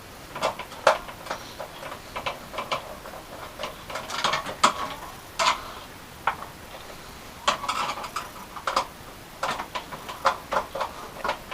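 Irregular light clicks and taps of computer hardware being handled, small plastic and metal parts knocking together.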